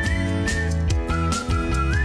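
Upbeat theme music with a whistled melody line that glides between notes, over bass and a steady beat of about two strokes a second.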